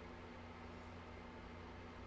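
Steady low electrical hum with a faint even hiss underneath: the background noise of an open recording chain.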